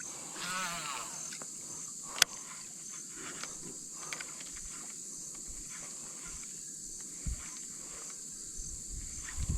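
Outdoor natural ambience: a steady, high, evenly pulsing insect drone, with a bird's wavering call about half a second in. A single sharp click comes just after two seconds, and there are a few soft low thumps near the end.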